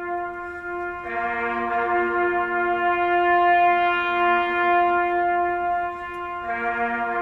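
A solemn brass call: long, slow, held notes with a trumpet-like sound. The notes change about a second in and again near the end.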